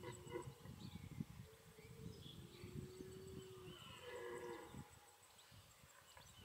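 Faint red stags roaring in the rut: one long drawn-out call about a second and a half in, then a shorter one around four seconds, over a low rumble.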